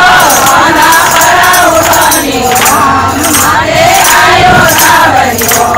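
A group of women singing a Marwari devotional bhajan to Krishna together, clapping their hands in rhythm.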